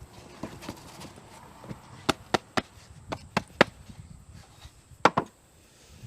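Sharp knocks on an aluminium casting and its sand-mould flask as the freshly poured casting is broken out: about seven strikes in small irregular clusters.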